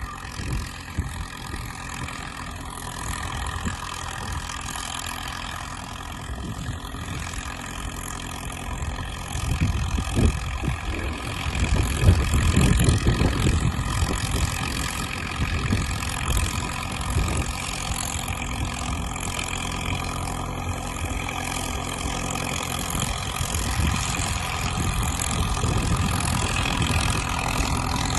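Caterpillar crawler dozer's diesel engine running steadily while dragging a trail, with a deeper, louder spell of about five seconds roughly ten seconds in.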